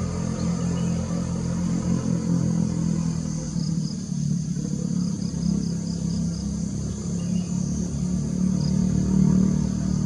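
Steady low rumble of a distant motor vehicle engine, under a constant high drone of insects with a few faint short chirps.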